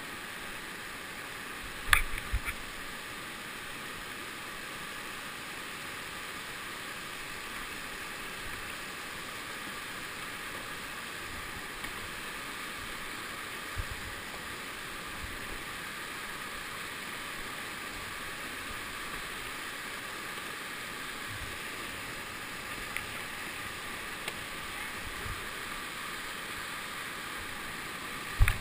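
Whitewater river rapids rushing steadily. A few sharp knocks, the loudest about two seconds in and again at the very end.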